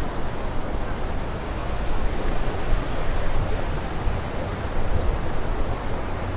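Ocean surf washing onto the beach, with wind buffeting the microphone in a gusty low rumble.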